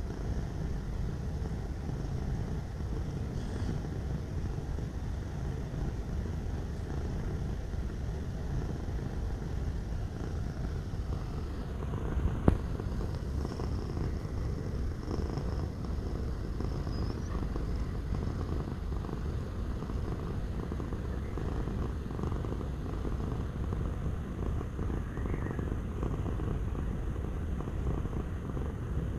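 A domestic cat purring steadily, with one sharp click about twelve seconds in.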